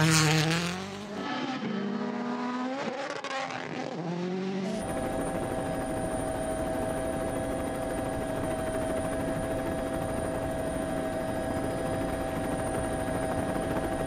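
A Hyundai i20 N Rally1 car's turbocharged four-cylinder engine revs up and down through gear changes for the first few seconds. About five seconds in, the sound cuts abruptly to a steady helicopter drone with a constant high whine.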